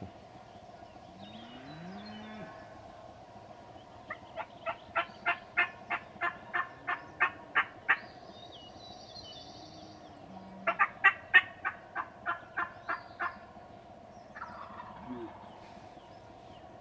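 Two series of wild turkey hen yelps, about four notes a second: a run of around fourteen notes, then after a pause a run of around a dozen.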